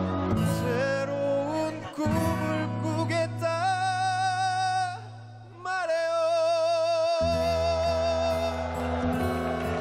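A live band ballad performance: a singer holds long, wavering vibrato notes over band accompaniment with guitar and a steady bass. There is a short break about halfway through before the last long note.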